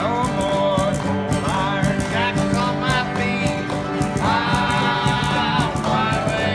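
Acoustic guitars and mandolin playing a country-bluegrass tune together, with a steady strummed rhythm under a melody line that bends and holds one long note about four seconds in.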